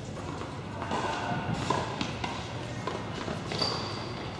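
Between-point sounds of indoor tennis: a few scattered knocks and thuds of tennis balls bouncing on the court and footsteps, over a murmur of indistinct voices, with a brief high squeak near the end.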